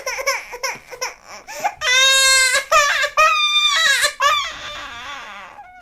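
Cartoon crying sound effect: a high-pitched voice sobs in short gasps, then breaks into two long wails and trails off in a wavering, fading cry.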